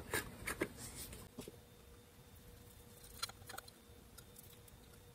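Faint, scattered light clicks and taps from handling a glue bottle, a small plastic glue cup and a brush, with a few in the first second and a short cluster a little after three seconds, over quiet room tone.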